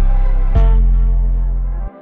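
Background music: held synth notes over a heavy, steady bass, changing chord about half a second in, with the bass cutting out briefly just before the end.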